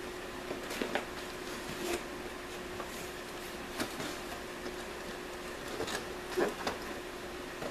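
A cardboard Loot Crate box being opened and handled: scattered faint scrapes, taps and rustles, over a steady hum.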